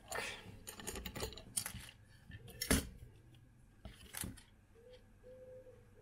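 Handling noise as a tablet circuit board is turned over and set down on a silicone work mat: rustling and light clicks, with a sharper knock a little under three seconds in and another about four seconds in.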